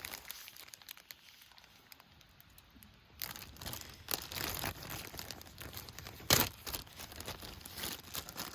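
Crinkling and rustling handling sounds, starting about three seconds in, with one sharp knock a little after six seconds.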